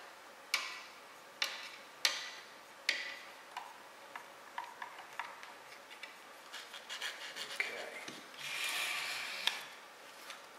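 Hand work on a 3D printer with a screwdriver: four sharp clicks with a short ring in the first three seconds, then lighter ticks. Near the end comes about a second of rubbing as a sheet of paper is slid between the nozzle and the print bed to gauge the gap.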